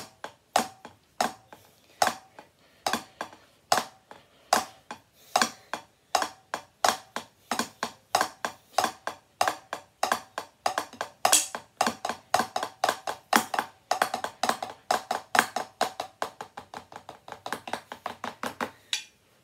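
Drumsticks striking a drum practice pad with both hands, each stroke a sharp tap with a short ring. The strokes start about one or two a second and speed up into rapid, denser sticking in the second half, growing lighter near the end.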